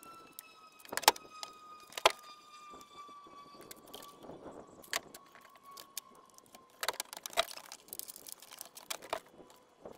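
Sharp clicks and metallic rattles of a tape measure being pulled out and snapped back, with knocks from the pickup's plastic load-bed liner, a few single clicks at first and a busier cluster near the end. Under them, a faint steady whine slowly falls in pitch and fades out about two-thirds through.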